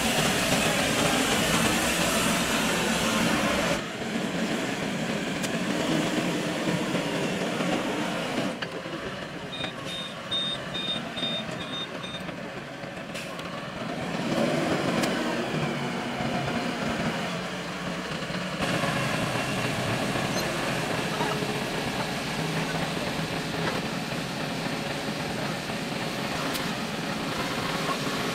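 5-ton rough terrain forklift's engine running as the machine drives and raises its mast, the sound changing abruptly several times. A run of short, evenly spaced high beeps about ten seconds in.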